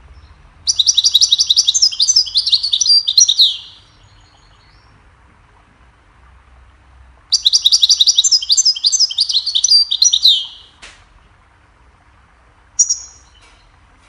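European goldfinch singing: two fast, twittering song phrases of about three seconds each, made of rapid high notes, then a single short note near the end.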